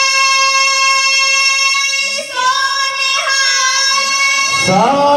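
Children singing kavishri in unison, holding long drawn-out notes, with a change of note about two seconds in and a new note starting near the end.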